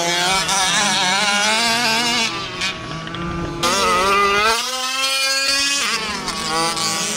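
Small two-stroke gas engines of fifth-scale RC trucks revving up and down as they race, their pitch rising and falling. About four seconds in, one engine's pitch climbs and holds steady for a moment.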